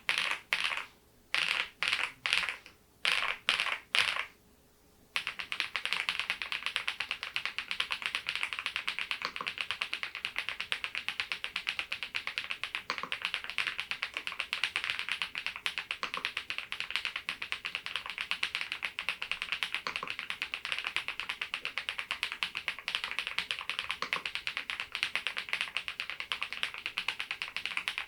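Geekstar GKG87R tenkeyless mechanical keyboard typed on fast: several short flurries of keystrokes in the first five seconds, then a steady run of rapid typing.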